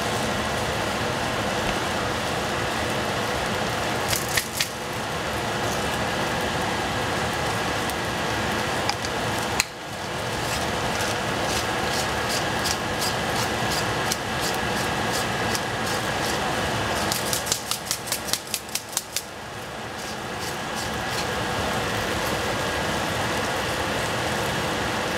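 Steady sizzling hiss of diced tomatoes cooking in a stainless saucepan over a gas burner. A few sharp clicks come about four seconds in, and a quick run of about ten clicks comes around two-thirds of the way through.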